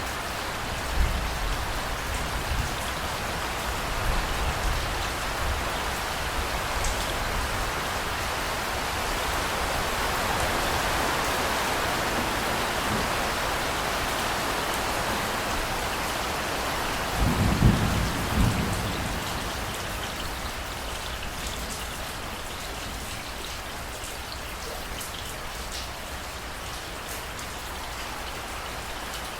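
Heavy rain falling steadily in a thunderstorm, with low thunder rumbling early on and a louder thunderclap with rumble about two-thirds of the way through.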